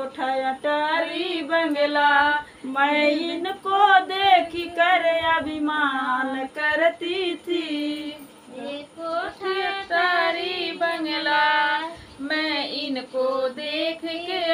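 Women singing a Hindi devotional bhajan unaccompanied, in long phrases with wavering pitch.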